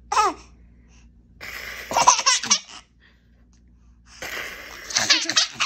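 Six-month-old baby laughing in two bouts, about a second and a half in and again from about four seconds in, each a breathy run of quick laughs.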